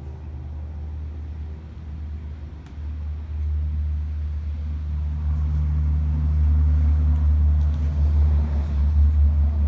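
The last faint tones of a Federal Signal 2001-130 tornado siren winding down, fading in the first moment. They give way to a low, steady rumble that grows louder from about three seconds in and stops abruptly right at the end.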